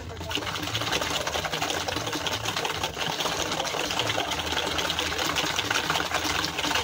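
Hand wire whisk beating sugar and cooking oil in a plastic bowl: a rapid, steady clatter of the wires scraping and knocking against the bowl.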